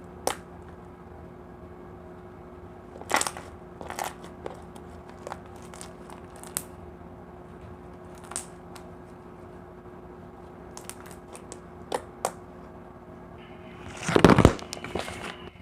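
Slime being squished and stretched by hand, giving scattered sticky clicks and small pops, with a louder handling rustle near the end.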